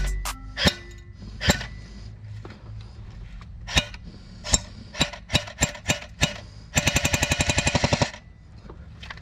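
CYMA AK-105 airsoft electric gun (AEG) firing a string of irregularly spaced single shots, then a rapid full-auto burst lasting about a second near the end.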